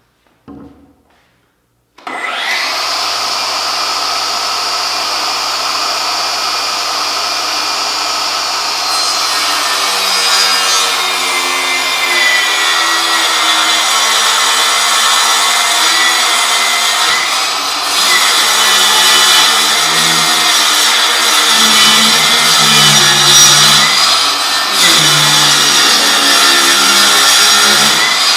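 Milwaukee M18 Fuel 8-1/4" cordless table saw with a brushless motor, switching on about two seconds in and running free with a steady whine. From about ten seconds on it is cutting wood, the sound wavering under load, easing off briefly twice.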